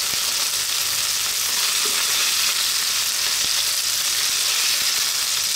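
Stir-fried chicken pieces sizzling steadily in oil in a hot nonstick frying pan, just off the heat, with a spatula pushing the pieces around and giving a few light scrapes.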